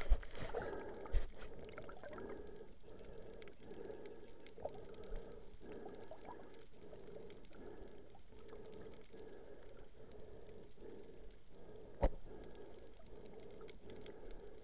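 Muffled underwater noise heard through a camera's waterproof housing on a dive, pulsing about twice a second, with one sharp knock about twelve seconds in.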